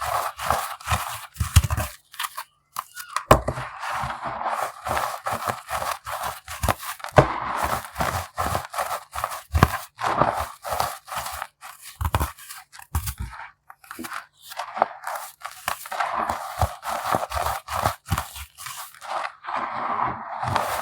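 Unsifted baking soda pebbles being crushed: a dense, irregular run of crisp crunching and crackling, with a few short pauses and the odd dull thud.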